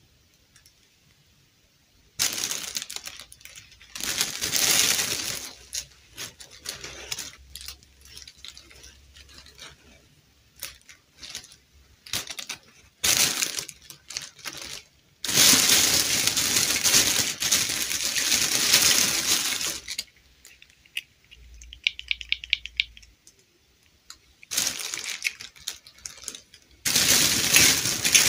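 Clear plastic bag crinkling and rustling in irregular bursts as hands dig through the dolls inside it, with small clicks of plastic doll parts and a quick run of ticks a little past the middle.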